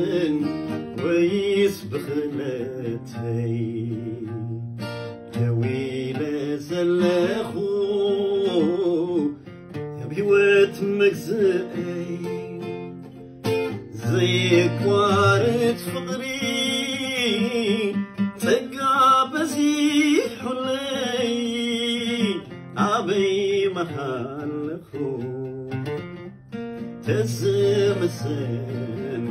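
A man singing a Tigrigna worship song (mezmur) with a wavering, drawn-out melody over his own strummed acoustic guitar.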